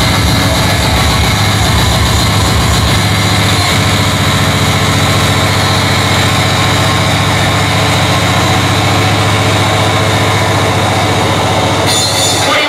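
Speedcore music over a club sound system: a very fast, distorted kick-drum beat fused into a buzzing bass drone. The low end cuts out just before the end.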